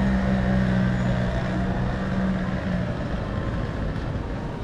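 A motor vehicle's engine running close by with a steady low hum, which fades out about three seconds in, over a background of street noise.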